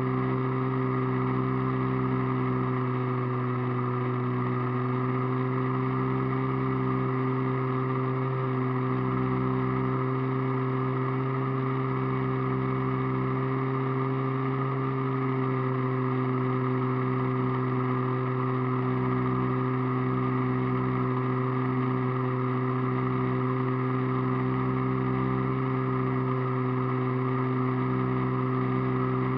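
Steady drone of a radio-controlled model airplane's motor and propeller, heard from a camera on board, holding one even pitch in level cruise.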